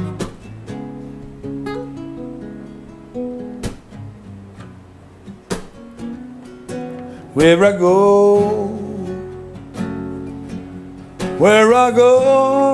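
Takamine acoustic guitar played slowly, chords and single notes left ringing. A man's voice sings a long phrase about seven seconds in and starts another line near the end.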